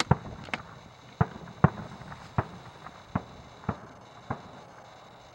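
Fireworks going off: a string of about nine sharp bangs at irregular intervals, growing fainter toward the end.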